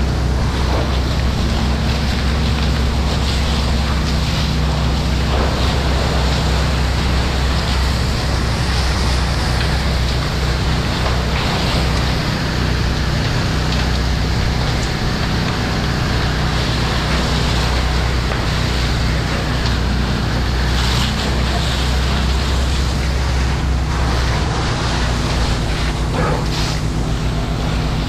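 Fire hose nozzle spraying a full stream of water onto smouldering debris, a steady loud rushing hiss, over the steady low hum of an engine.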